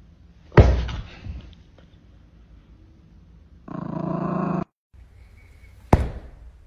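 A thump about half a second in, then a Yorkshire terrier growling for about a second; near the end, another sharp knock.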